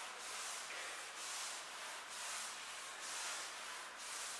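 Soft, rhythmic swishing about twice a second: glider discs under the feet sliding back and forth over artificial turf during alternating glider tucks.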